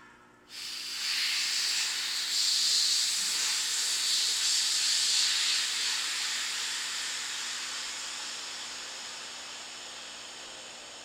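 Compressed air hissing through the valve of an air bag lift system, starting abruptly about half a second in and slowly fading away.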